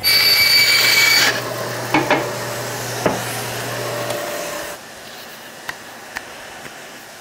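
Bandsaw cutting through a black plastic leaf-blower tube: a loud whining cut for about a second, then the saw running on with a steady hum and a couple of knocks as the cut pieces are handled. The saw winds down about four seconds in, leaving a few light clicks.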